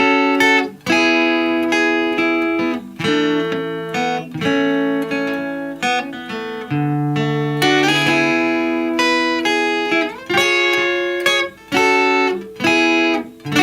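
Acoustic guitar strumming chords, with a new chord struck about once a second.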